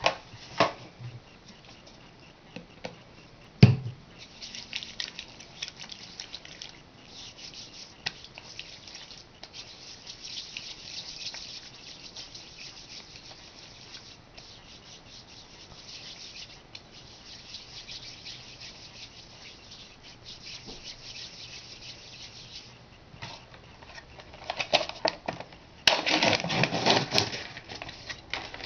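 Palms rubbing together as the Betaseron vial is rolled between them to dissolve the powder: a soft, steady rubbing hiss in long stretches. A single sharp knock comes about four seconds in. Near the end comes louder crinkling and rustling of the plastic blister packaging.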